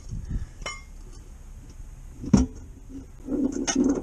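Metal clinks and knocks from hand work on the truck's front wheel hub and knuckle while a CV axle is swapped. A light clink comes about 0.7 s in, a sharper knock about 2.4 s in, and a rougher stretch of metal-on-metal handling near the end.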